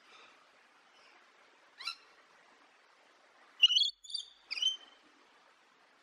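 High-pitched cartoon chipmunk-style laugh: a short squeak about two seconds in, then a quick three-note chuckle about half a second apart near the middle. A faint haze of distant birds twittering lies underneath.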